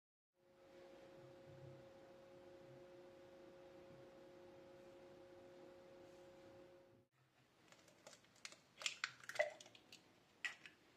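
A faint steady hum for most of the first seven seconds. In the last few seconds it gives way to a cluster of sharp clicks and taps: an egg being cracked on a glass bowl and opened into it.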